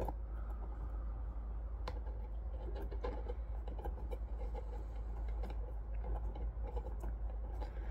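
Small screwdriver turning a machine screw through a crimp lug into the flange of a brass antenna connector: faint scattered metal clicks and scrapes, with one sharper click about two seconds in, over a steady low hum.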